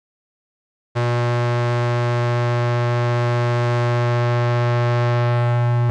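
After a second of silence, a loud, steady, low synthesized buzzing drone starts abruptly, one held pitch rich in overtones that does not change.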